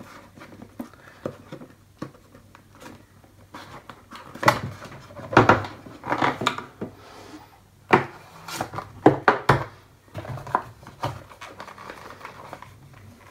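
Cardboard packaging being handled and closed up: a white cardboard tray sliding into its sleeve, with irregular scrapes, rubs and sharp knocks of the box.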